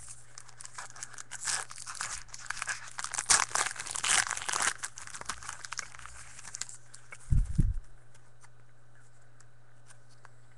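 A trading card pack's wrapper being torn open and crinkled for several seconds, followed by a single low thump about three-quarters of the way through.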